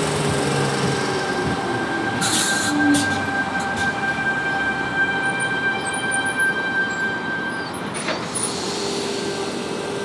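Sydney Trains Tangara double-deck electric train running past on the rails, a steady rolling rumble with a steady high-pitched whine over it. The sound changes abruptly about eight seconds in.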